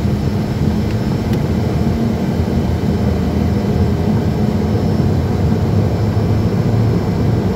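Cockpit noise of a twin-engine business jet accelerating down the runway at takeoff power: a loud, steady engine hum over a low rumble from the roll.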